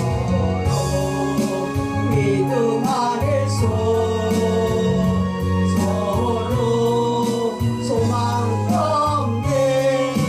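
A Korean gospel hymn sung to instrumental accompaniment: voices carry a slow melody over sustained bass notes and a steady beat.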